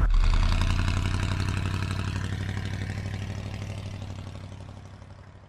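A vehicle engine idling with a low, steady throb. It starts suddenly and fades out over several seconds.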